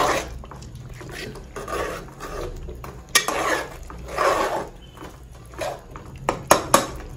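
A spoon stirring and scraping thick masala in a cooking pot, roasting it in several strokes, with a few sharp clicks of the spoon against the pot near the end.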